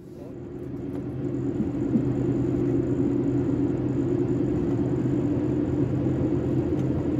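Steady road and engine noise of a moving car, heard inside the cabin, rising in level over the first two seconds and then holding steady.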